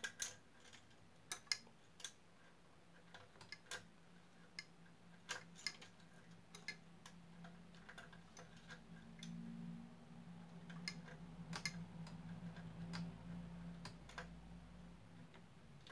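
Small, sharp clicks and taps, scattered irregularly, as fingers fit the detachable coiled hydraulic cables of a 1/18 NZG Mercedes-Benz Actros diecast truck model back into their clips at the rear of the cab.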